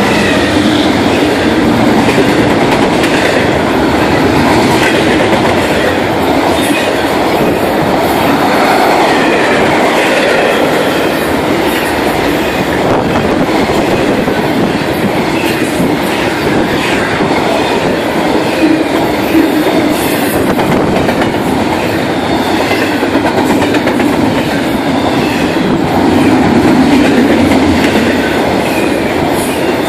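Double-stack container and trailer cars of an intermodal freight train rolling past: a loud, steady rumble and clatter of steel wheels on the rails, with a couple of sharper knocks a little past the middle.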